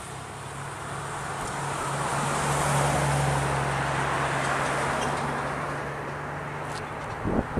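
A road vehicle passing on the adjacent street, its tyre and engine noise swelling to a peak about three seconds in and then fading, over a steady low hum. A short wind bump on the microphone near the end.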